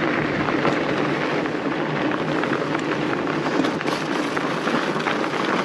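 Fat bike rolling along a snow trail: a steady noise of wide tyres crunching over snow, with faint small ticks throughout.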